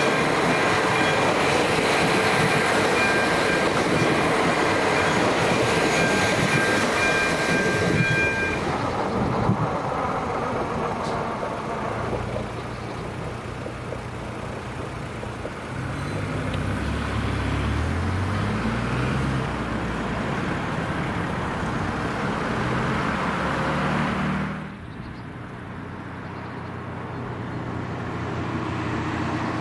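A train passing over a level crossing, loud with steady high-pitched squealing tones for about the first eight seconds, then fading away. After that, road vehicle engines pull away and pass, their pitch stepping up.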